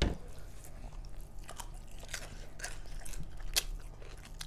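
A person chewing food with the mouth close to the microphone: irregular crunchy clicks and smacks, a few a second.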